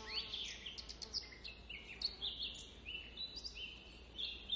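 Outdoor nature ambience of small birds chirping, many short chirps a second overlapping one another, over a faint steady low hum.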